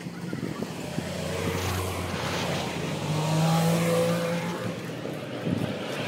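A road vehicle passing close by, its engine and tyre noise swelling to a peak about three and a half seconds in and then fading.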